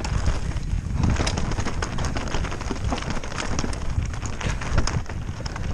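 Mountain bike descending a rough trail at speed: tyres rolling over loose slate and gravel with a steady low rumble, and irregular clicks and knocks from stones and the rattling bike.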